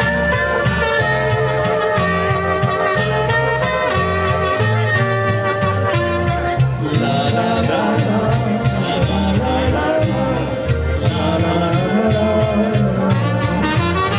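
A band playing a slow folk-style song with a steady bass line and held melody notes, with singing.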